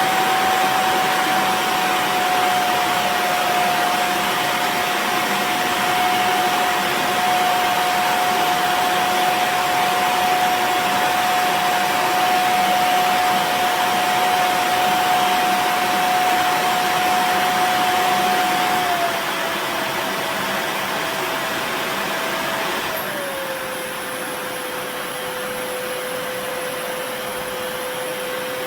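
ghd Helios hair dryer blowing steadily, a whining motor tone over the rush of air. About two-thirds through the whine drops slightly in pitch, then a few seconds later drops again and the blowing gets quieter.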